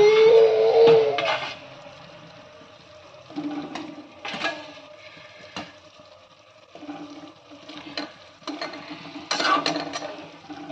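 Fried gulab jamun balls being dropped into sugar syrup in a metal kadhai: a spoon clinks against the pan and the syrup sloshes and splashes in short bursts. A brief pitched, gliding sound, louder than the rest, opens the stretch.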